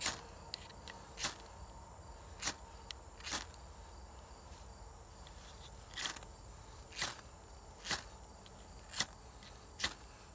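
UST ferro rod scraped hard with its steel striker, about nine quick scrapes a second or so apart with a pause of a couple of seconds in the middle, showering sparks onto bird's nest tinder to light it.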